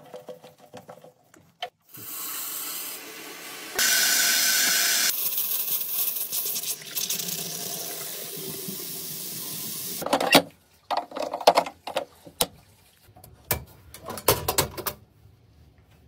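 Two-handle bathroom sink faucet running water into the basin, louder for a moment near the start, then stopping about ten seconds in. A series of sharp clicks and knocks follows.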